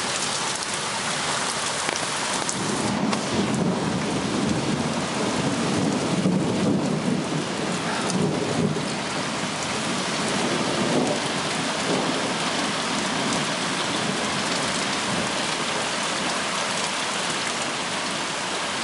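Heavy rain pouring steadily, with thunder rumbling beneath it, swelling and fading over the first half.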